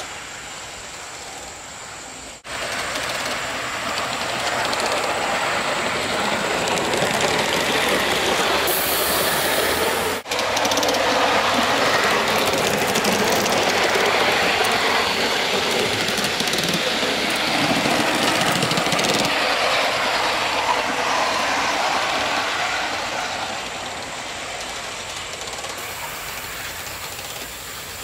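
Aster FEF-3 Gauge 1 live-steam model locomotive running on garden track: a steady steam hiss with wheel-on-rail noise. It grows louder about two seconds in, stays loud as it passes close by, and fades near the end.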